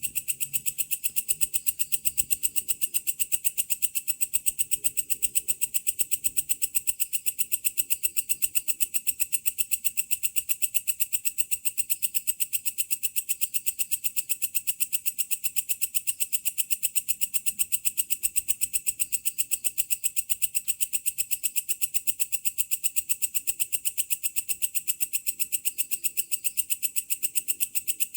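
Belalang kecek, a bush cricket (katydid), calling steadily: a rapid, even train of high-pitched, scratchy pulses.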